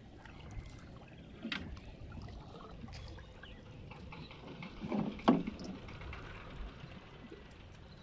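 Water sloshing and splashing as a man wades and works a cast net in shallow water, with a few short splashes and the loudest one about five seconds in.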